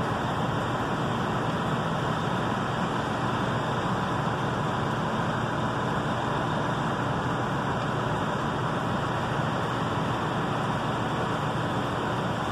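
Fire apparatus engines and pumps running steadily, a constant mechanical noise with a faint steady hum in it.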